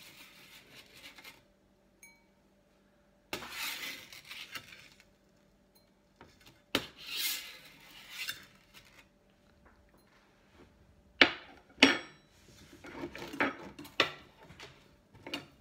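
Metal spoon scraping crumbs across a metal pizza pan, with a few sharp clinks of metal on metal in the second half.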